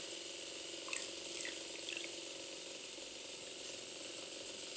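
Small 12-volt motor of a homemade toy washing machine running steadily with a thin whine, its belt and pulley churning water in the little drum. A few light ticks about a second in.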